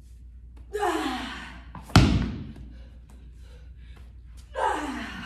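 A medicine ball slammed hard onto the gym floor once, about two seconds in. The slam comes just after a forceful exhale that falls in pitch, and another such exhale comes near the end as the next slam begins.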